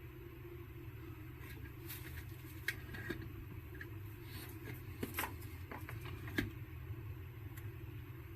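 Scattered faint clicks and knocks of handling as the boombox is plugged in and switched on, over a low steady hum.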